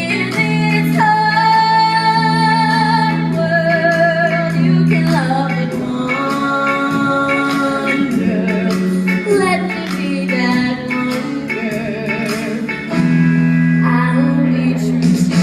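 Live stage music with singing: voices hold long notes with vibrato over sustained low chords from the band.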